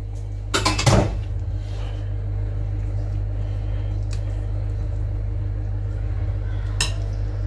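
Wire whisk knocking and scraping against a glass bowl as the last of the batter is scraped out, a cluster of knocks about a second in and another near the end, over a steady low hum.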